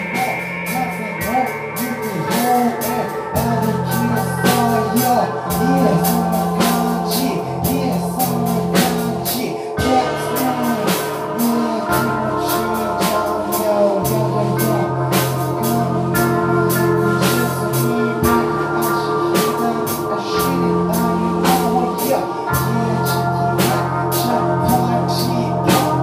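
Live rock band playing: a drum kit with cymbals keeps a steady beat over a low line that changes note every second or two, with held higher guitar and keyboard tones.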